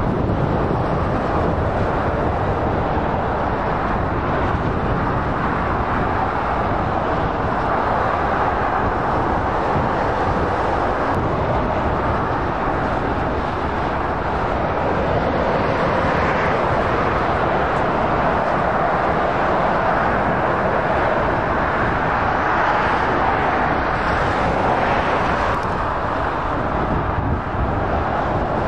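Steady motorway traffic noise: heavy lorries and cars passing at speed, a continuous blend of tyre noise and engine drone.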